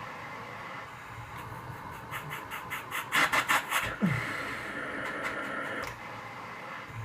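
Cough assist machine running a therapy cycle through a face mask: steady air hiss, then a fast pulsing stretch of about five beats a second through the middle, and a falling motor tone about four seconds in as steady airflow resumes.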